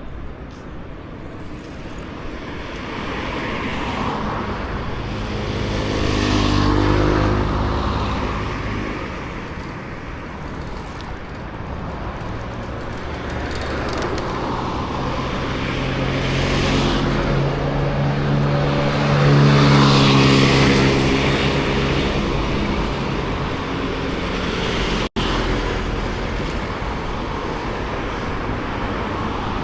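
Road traffic with cars driving past, two of them passing close by, about seven and twenty seconds in, each swelling and fading with its engine hum.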